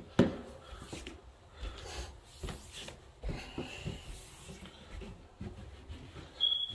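Footsteps climbing a carpeted staircase, a soft thud every half second or so, with the rub of a hand-held phone, after one sharp knock just at the start.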